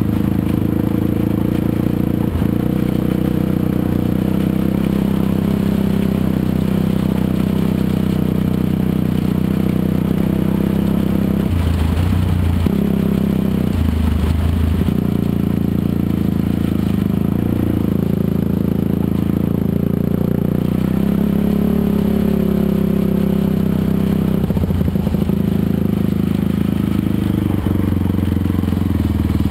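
Dirt bike engine running steadily as the bike rides over gravel, with scraping and rattling from the ride. The engine note shifts briefly twice about halfway through.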